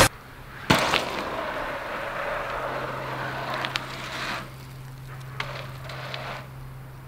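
A BMX bike landing a jump with one sharp thud under a second in, then its tyres crunching and rolling over the packed dirt of the track, with a steady low hum underneath.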